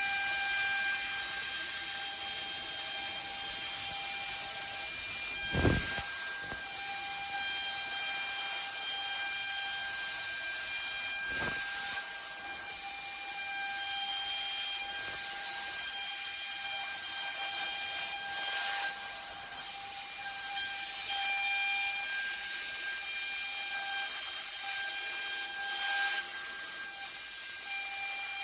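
Rotary CNC router milling a rotary die board: the spindle gives a steady whine over the hiss of the cutter. There is a short low knock about six seconds in and another about eleven seconds in.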